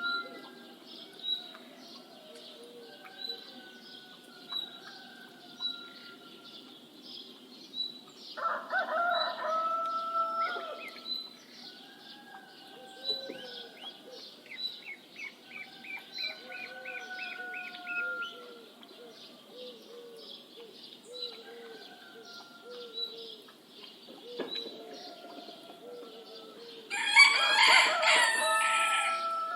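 Dawn bird chorus: many small birds chirping and singing, with a high note repeating about once a second. A rooster crows for about two seconds about eight seconds in. A louder, harsher crowing call comes near the end.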